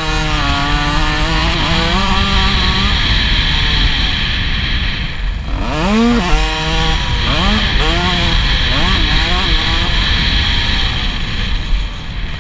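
50cc two-stroke youth motocross bike's engine revving hard, its buzzing pitch climbing and dropping several times as the throttle is rolled on and off, sharpest about six seconds in, over a steady rushing hiss.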